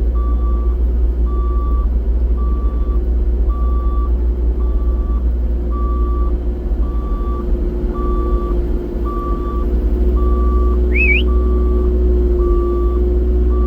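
Diesel excavator engine running steadily while its travel alarm gives evenly spaced beeps at one pitch, the machine on the move. A short rising whistle sounds about eleven seconds in.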